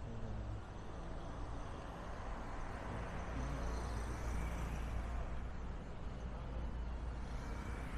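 Street traffic: a steady hum of passing cars and motorbikes with tyre noise, swelling a little about halfway through.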